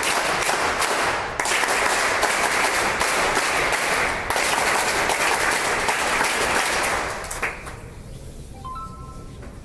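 Audience applauding, a dense steady clapping that dies away about seven and a half seconds in.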